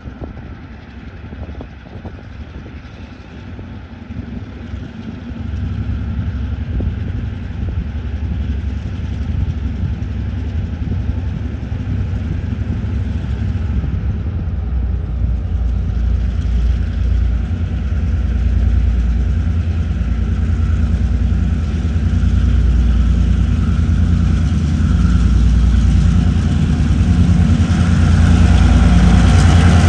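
A consist of four TasRail diesel-electric locomotives hauling an empty ore train, approaching. Their deep, pulsing engine rumble grows steadily louder as they draw near.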